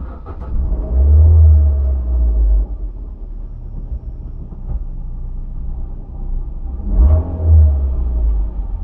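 Low rumbling thuds from the rear of a 2002 Ford Fiesta under a steady car rumble, heaviest twice: about a second in and again about seven seconds in. It is the annoying noise from the trunk area that the owner puts down to a failed silentblock (rubber bushing).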